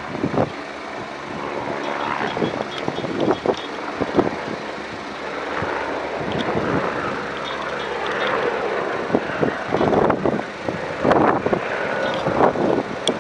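Engine drone of a firefighting aircraft flying over: a steady hum of several tones, with irregular short bumps on top.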